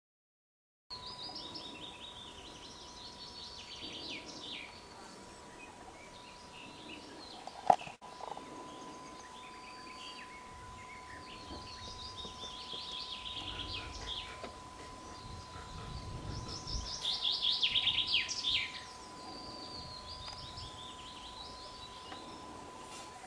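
Small songbirds chirping and trilling outdoors in repeated bursts, busiest about three-quarters of the way through. A faint steady whine runs underneath, and there is one sharp click about eight seconds in.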